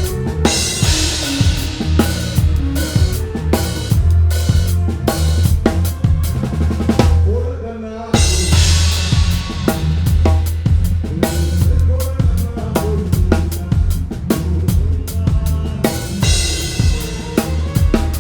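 Drum kit playing a steady groove as picked up by the overhead microphones: kick drum, snare and cymbals, with bright cymbal washes in stretches near the start, after the middle and near the end. The playing thins out briefly about eight seconds in, then picks up again.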